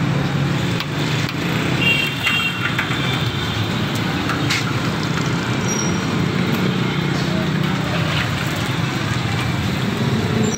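Steady traffic noise with a low engine drone underneath.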